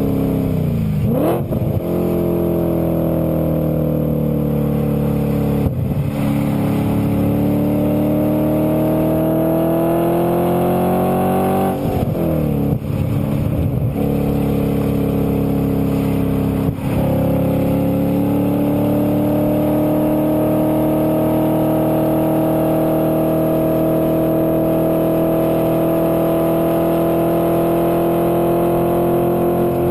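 2008 Audi RS4's 4.2-litre V8 through a Milltek exhaust, heard from inside the cabin while accelerating on track. The engine pitch climbs repeatedly, with short breaks about 1, 6, 12 and 17 seconds in, then a long, slow, steady rise.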